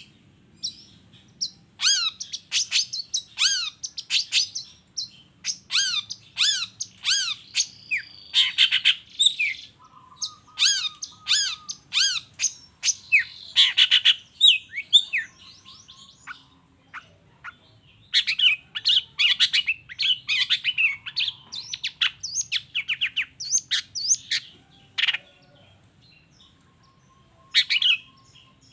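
Long-tailed shrike (cendet) singing vigorously in rapid runs of sharp, down-slurred whistled notes mixed with harsher squawky calls. The song breaks off for a couple of seconds about halfway through and again near the end.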